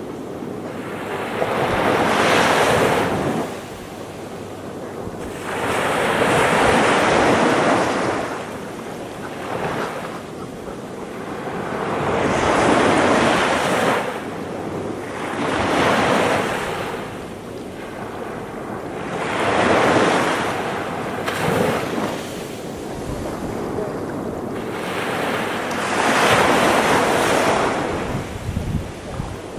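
Surf breaking and washing up a sandy beach, each wave swelling and fading again about every three to four seconds.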